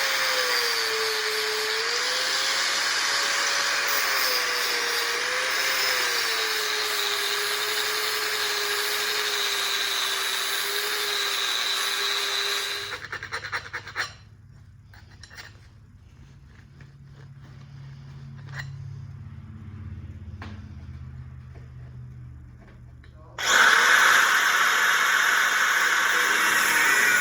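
Angle grinder grinding steel, its motor whine wavering as it takes the load, running for about half the time before stopping. A quieter stretch follows with a low hum and a few taps of metal being handled, then the grinder starts up again near the end.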